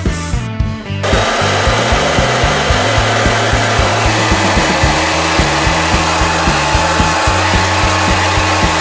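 A hair dryer blowing, a steady loud hiss that starts about a second in, over background music with a steady beat.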